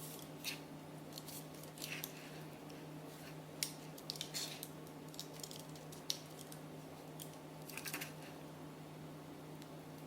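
Light kitchen food-prep handling: a few scattered clicks and crinkly rustles over a steady low hum.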